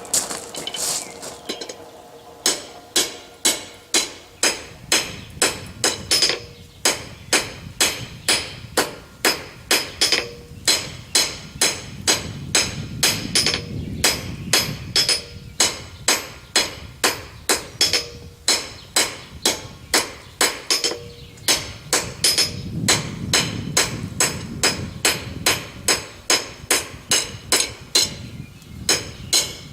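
Blacksmith's hand hammer striking hot steel on an anvil, about two blows a second in a steady rhythm starting about two seconds in, each blow with a short metallic ring. The smith is drawing the tenon down smaller so it fits the monkey tool.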